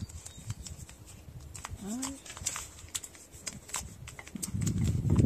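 Newspaper crinkling and rustling as it is rolled and folded around a bottle, with scattered sharp crackles.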